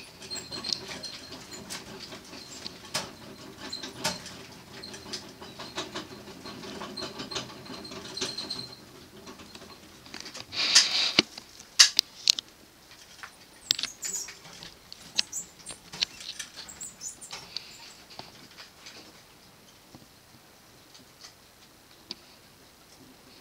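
Degus scratching, shuffling and rustling about in their cage bedding, with many small scattered clicks and scratches. A louder burst of rustling comes about eleven seconds in, followed by a few sharp clicks.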